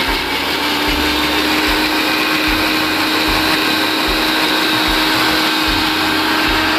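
Electric mixer grinder running at a steady speed, blending egg and oil into mayonnaise: a loud, even motor whir with a steady whine over it.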